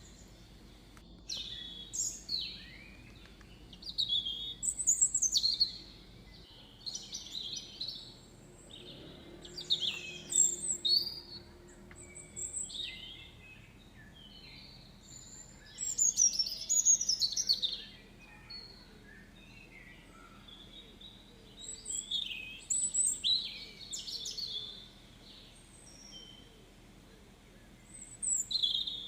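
Small birds singing: short phrases of quick high chirps and down-sweeping notes, coming every couple of seconds with brief pauses between them.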